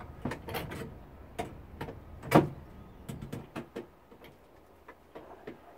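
Scattered clicks and knocks of hand work inside a dishwasher tub as pressed-on stainless steel clips are worked off the heating element. One sharper knock comes about two and a half seconds in, with a run of lighter clicks after it.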